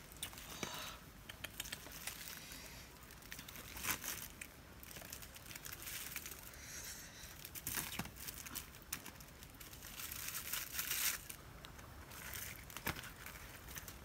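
Hands peeling scaly red palm fruits, the brittle skins crackling and tearing in irregular short bursts, with a few sharp snaps.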